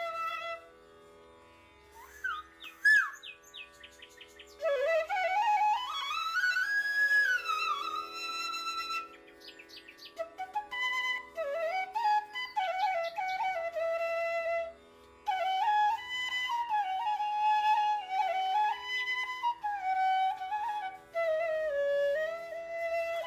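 Background music: a solo flute playing a slow, gliding melody over a steady low drone, with a few quick chirping runs about two to three seconds in and again near nine seconds.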